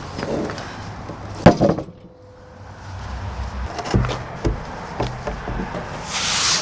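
Thumps and knocks of heavy ash slabs being handled: one loud thump about a second and a half in, then several lighter knocks.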